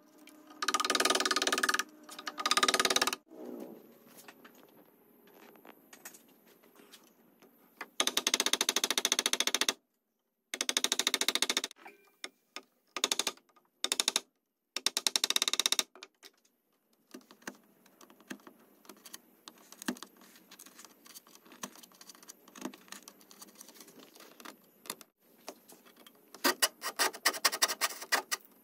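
Hand-tool work on a wooden table leg's through-tenon: several loud stretches of cutting on wood that stop abruptly, then light scraping and ticking, and near the end fast back-and-forth strokes of a flush-cut saw.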